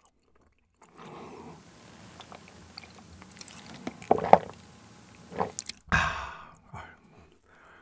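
A man drinking water from a cup in close-up, with gulping and a loud swallow about four seconds in, then a breathy 'hah' exhale after the drink.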